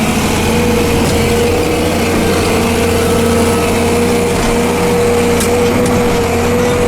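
Farm vehicle engine running steadily under load on a steep slope, heard from inside the cab, with a steady high whine over the engine drone.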